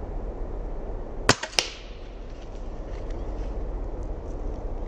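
Air rifle shot fired at an iguana in a tree: a sharp crack about a second in, then a second crack about a third of a second later.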